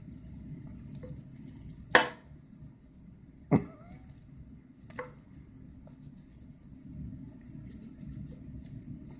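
Three sharp knocks on a cardboard whack-a-mouse cat toy as it is played with: the loudest about two seconds in, another about a second and a half later, and a weaker one about five seconds in. A low steady hum runs underneath.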